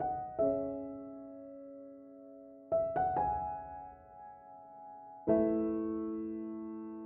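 Slow, gentle background piano music: single notes and chords struck a few at a time, each left to ring and fade, with a fuller chord about five seconds in.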